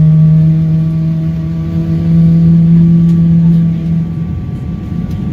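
Boeing 777 aircraft noise: a steady low mechanical drone over a continuous rumble. The drone fades out about four seconds in, leaving the rumble.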